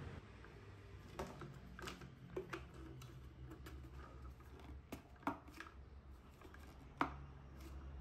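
Light clicks and knocks of hard plastic parts being handled: the PVC end cap, pipe and clear plastic bottle of a homemade humidifier tapping together, with the sharpest knock about seven seconds in.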